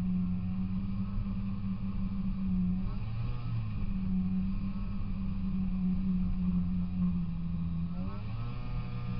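Polaris Indy 340 snowmobile's two-stroke engine running steadily under way. Its revs drop and climb back up twice, about three seconds in and near the end.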